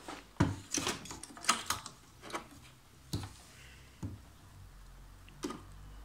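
Scattered light clicks and knocks at irregular intervals from plastic parts and a screwdriver being handled inside an open inkjet printer, during work on its purge pump.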